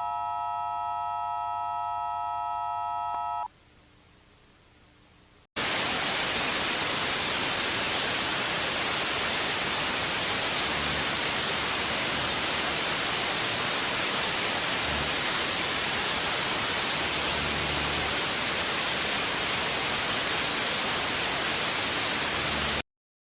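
An emergency alert tone, a steady chord of several pitches, sounds for about three seconds and stops. A couple of seconds later loud, steady white-noise static like a dead TV channel starts suddenly and runs until it cuts off abruptly just before the end.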